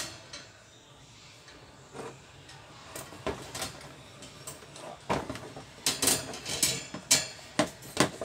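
Wire fan guard clattering as it is handled and fitted onto a stand fan: a run of sharp metallic clicks and knocks, sparse at first and coming thick and fast in the last three seconds.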